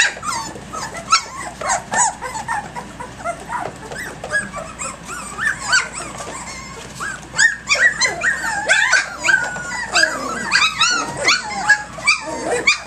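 A litter of three-week-old Doberman puppies making many short, high, overlapping yips and whines, busiest in the second half. Sharp clicks and knocks of paws and bodies on the plastic crate floor come through here and there.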